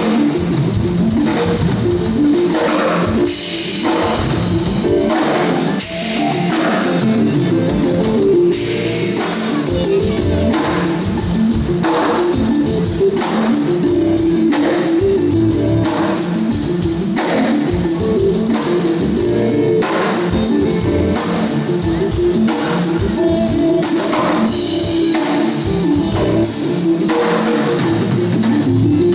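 Acoustic drum kit played continuously, a dense run of drum hits and cymbals, over a loud rock backing track with guitar.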